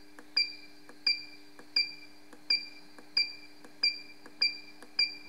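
Easson ES-8 milling-machine digital readout beeping at each press of its arrow key: eight short, high beeps about two-thirds of a second apart as it steps through the hole positions of a 12-hole pitch circle. A steady low hum runs underneath.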